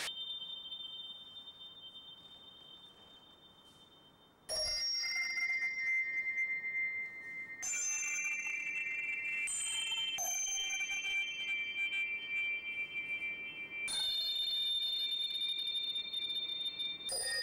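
High, bell-like ringing tones: a pair of tones fading away over the first few seconds, then clusters of several steady high tones that enter suddenly about four and a half seconds in and change abruptly several times after.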